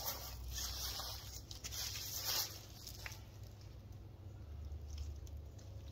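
Rustling and handling noises, a run of short scuffs in the first half with the loudest just after two seconds and a single click at about three seconds, over a steady low hum.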